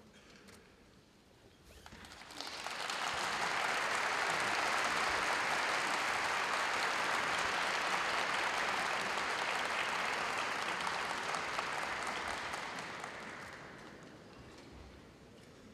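Audience applauding at the close of a karate kata performance; the applause swells about two seconds in, holds steady, then fades away near the end.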